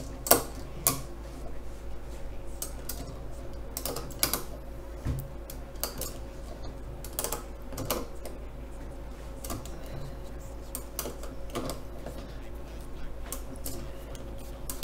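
Scattered sharp clicks and ticks from a pull-test rig (digital hanging scale, steel rod and glued PLA test pieces clamped in a bench vise) as a super glue shear joint is loaded by hand to over 160 pounds, over a faint steady hum.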